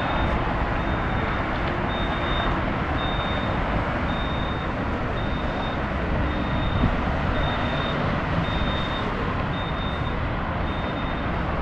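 Steady rumble of bus engines and road traffic at a busy bus station, with a high beep repeating a little more often than once a second, the reversing alarm of a vehicle backing out.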